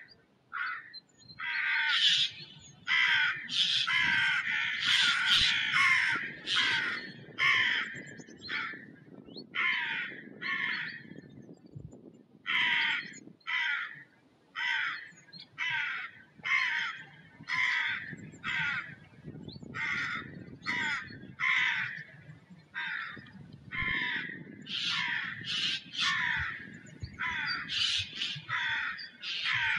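A flock of birds calling over and over: short calls at about one or two a second, often overlapping, with a low rumble underneath.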